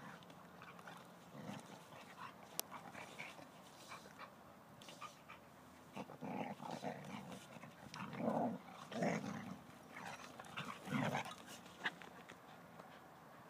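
Two dogs play-fighting, with a series of short, low growls from about halfway through.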